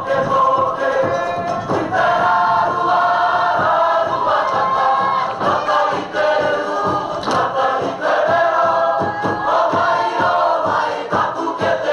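A group of young voices singing a Cook Islands song together in harmony, over a regular beat of sharp percussive strikes.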